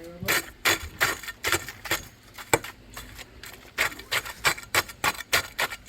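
Irregular run of sharp knocks, a few each second, from concrete being rammed down and packed in by hand as backfill behind a pond wall.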